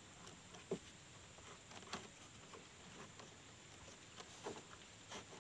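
Near silence, with a few faint short clicks.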